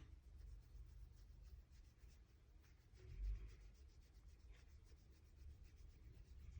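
Faint scratching of writing on paper in quick, irregular strokes, with one dull low thump a little past three seconds in.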